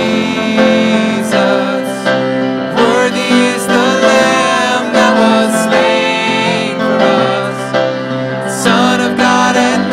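Worship song played live by a small band: singing over grand piano and violin.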